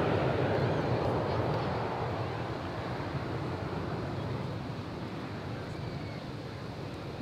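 Jet engine roar of four F-16 Fighting Falcons flying in diamond formation, a steady rushing noise that fades as the jets move away.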